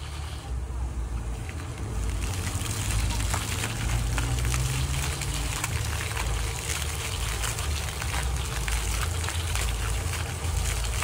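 Splash-pad fountain jets spouting and splashing onto wet paving: a steady crackling patter of falling water that grows fuller about two seconds in, over a heavy low rumble.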